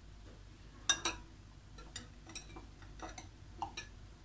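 Metal spoon clinking against a glass jar and a cut-glass bowl while scooping thick strawberry jam: two sharper clinks about a second in, then a few lighter taps.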